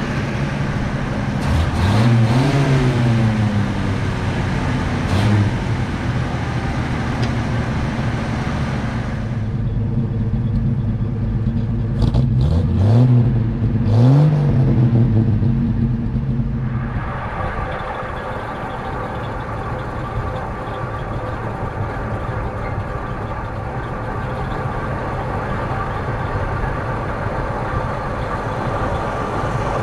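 1953 Chevrolet panel truck's inline-six engine running close by. It is revved briefly a few times, once about two seconds in and twice more around the middle, then settles to a steady idle.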